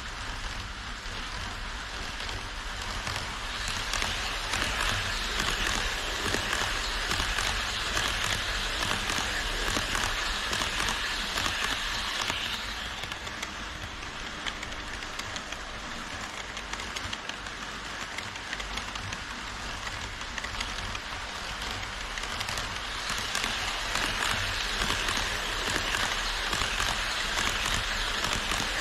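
HO scale model trains running on KATO Unitrack: a steady rushing rattle of wheels on the rails. It swells twice as trains come nearer, the second time as an E5 Series Shinkansen model passes close by near the end.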